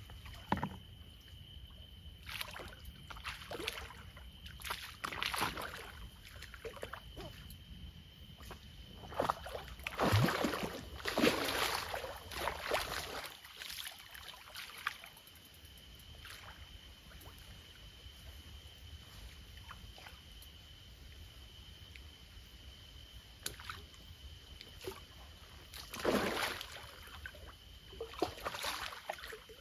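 Water splashing and sloshing as a hooked grass carp is played in the water, in irregular splashes, the biggest group about ten seconds in and another near the end.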